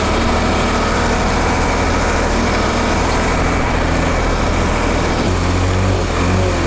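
ZIL army truck's engine running steadily as the truck drives along, a low even drone; the low hum grows a little stronger about five seconds in.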